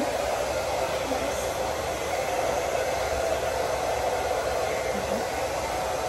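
Handheld hair dryer running steadily, blowing air through a child's hair: an even rushing noise with a hum in it.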